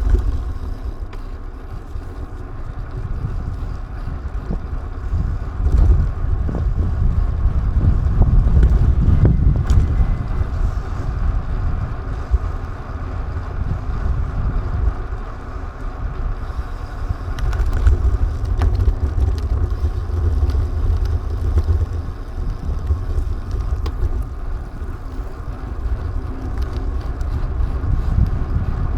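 Motorcycle engine running while riding, under a steady low rumble of wind on the camera's microphone; it swells a few times as the bike speeds up.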